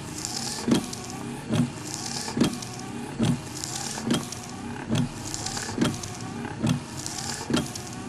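Industrial-style electronic intro: a heavy low thud repeating evenly, a little over once a second, with swells of hiss between the beats, giving a mechanical, machine-like rhythm.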